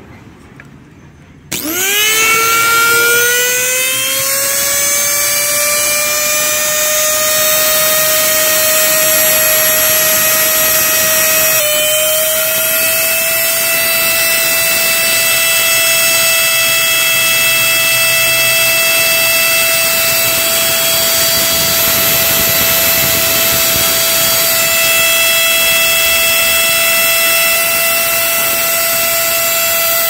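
Oster blender's universal motor, with freshly rewound field coils, switched on about a second and a half in: it spins up quickly with a rising whine, then runs at a steady high-pitched whine. It runs properly, showing that this field-coil connection, input joined to input, works.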